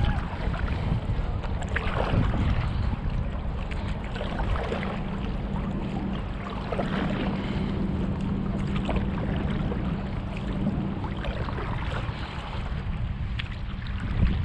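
Stand-up paddleboard paddle strokes splashing in lake water every couple of seconds, with wind on the microphone. A steady low hum runs underneath and fades out about eleven seconds in.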